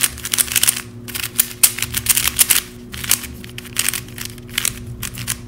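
A small stickerless plastic 3x3 keychain speedcube being turned quickly by hand, its layers clicking and clacking in fast irregular runs with short pauses; it turns smoothly.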